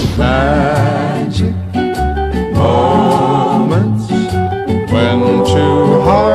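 Music with sung voices holding long, wavering notes over a bass line.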